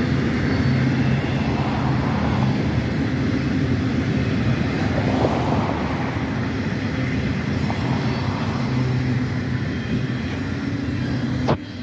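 Freight train of autorack cars rolling past on the rails: a steady rumble of wheels on track, cutting off sharply near the end.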